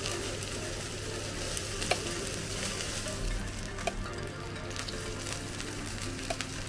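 Meat sizzling on a hot grill pan: a steady hiss with a few sharp pops, over a steady low hum.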